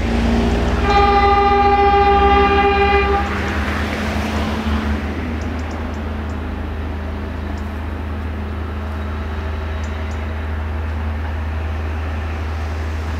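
Diesel-hydraulic locomotive (CFR LDH class 82) sounding its horn as the train departs: a lower tone at the start, then a higher tone held for about two seconds. A steady low rumble runs underneath.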